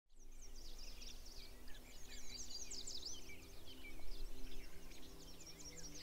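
Many small birds chirping and singing at once, a dense mix of quick high calls and short song phrases, fading in at the start. Low steady held tones run underneath.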